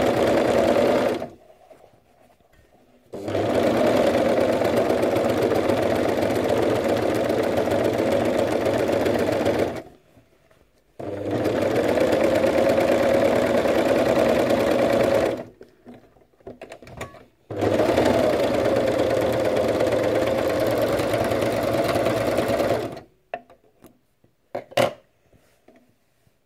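Serger (overlocker) running in four bursts of a few seconds each, stopping and restarting between them as a curved fabric edge is overlocked. A few light clicks fall in the pauses, and there is a single sharper click near the end.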